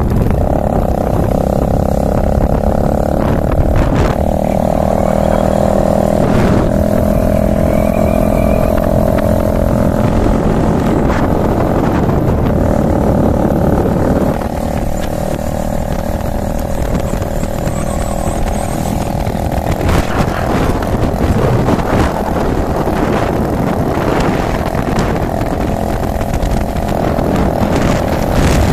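Motorcycle engine running steadily at road speed, over a low rush of wind and road noise. The engine note and loudness shift slightly about halfway through.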